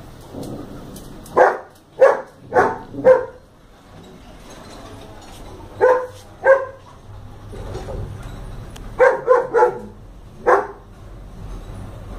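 A dog barking: about ten short barks in three bouts, with pauses between them.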